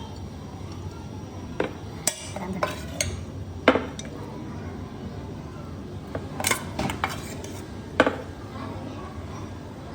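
Metal pots and utensils clinking and knocking together, about eight sharp clanks at irregular intervals over a steady background noise.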